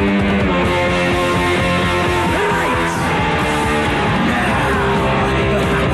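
Punk rock band playing loud, with distorted electric guitar, bass and drums in a dense, steady wall of sound.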